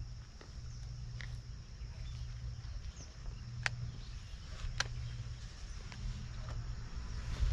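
Outdoor ambience by the water: a steady high-pitched hum over a low rumble, with a few sharp clicks, the clearest two about a second apart near the middle.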